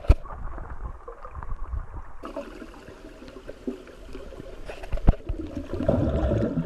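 Muffled underwater noise from a camera held under the water of a creek: a low watery rumble with gurgling, and sharp knocks on the housing near the start and about five seconds in.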